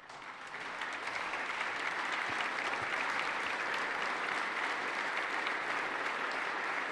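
Applause from the assembled legislators in the House chamber, building quickly over the first second and then holding steady.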